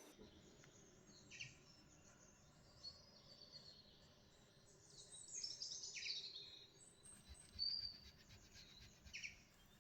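Faint bird chirps: short high calls and quick falling whistles every second or two over quiet background hiss.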